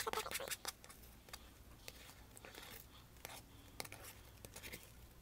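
Hands kneading and pulling sticky homemade glue-and-borax glitter slime on a paper plate: a run of small sticky clicks and pops, densest in the first second, then scattered.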